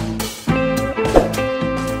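Background music with a steady beat, and a brief pitch sweep about a second in.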